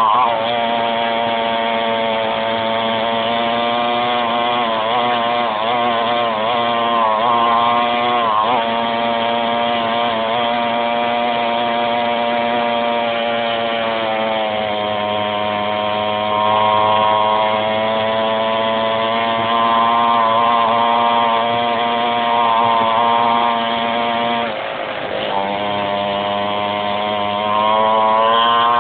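A 49cc mini quad's small two-stroke engine running at high revs, its pitch wavering with the throttle. The revs dip briefly about eight seconds in, fall off around three-quarters of the way through, then climb again near the end.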